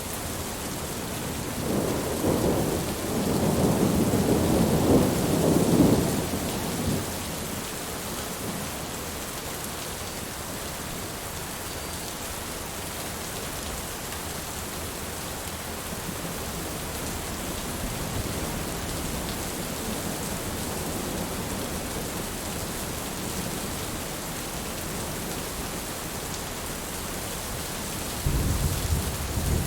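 Steady heavy rain, with a long rumble of thunder that builds and fades about two to seven seconds in, and another thunder rumble starting near the end.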